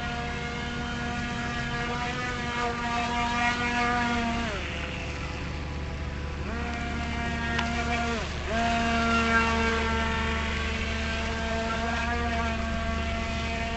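Feilun FT009 RC speedboat's electric motor whining at a steady high pitch. Its pitch falls away about four seconds in and again about eight seconds in as the throttle is eased off, and climbs back each time.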